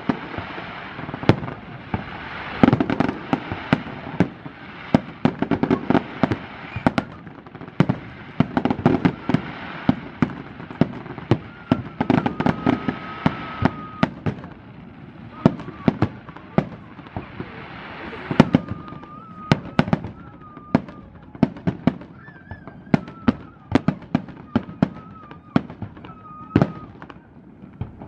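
Aerial fireworks display: a rapid, irregular string of dozens of sharp bangs from shells bursting, over a dense crackling haze that thins out in the later part. From about halfway on, a faint, wavering high tone comes and goes.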